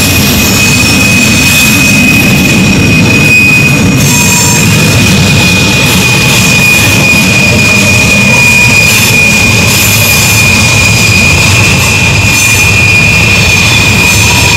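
Freight train cars rolling past on a sharp curve: a steady low rumble of the wheels on the rails, with a thin, high, continuous wheel squeal held over it.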